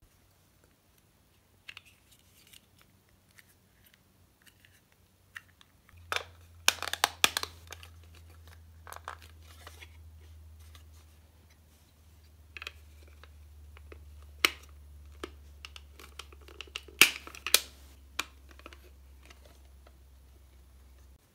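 Hard plastic model-kit parts being handled and fitted together: scattered clicks and clacks, with louder clusters about six seconds in and again about seventeen seconds in.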